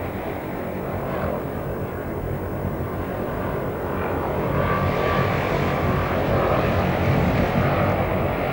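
Engine and propeller of the Grumman Ag Cat floatplane biplane running steadily, getting somewhat louder after about four seconds.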